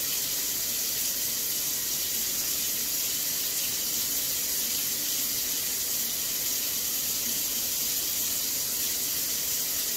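Kitchen faucet running steadily into a stainless steel sink, an even rush of water.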